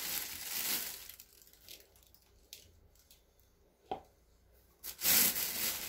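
Fingers stirring and scooping loose potting mix with perlite in a plastic bowl: a dry, gritty rustle in the first second and again near the end, with a few faint clicks in the quieter stretch between.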